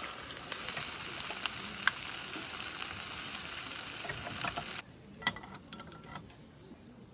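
Food sizzling and crackling in a hot pan, a steady hiss with scattered pops that cuts off abruptly about five seconds in, leaving a few faint crackles.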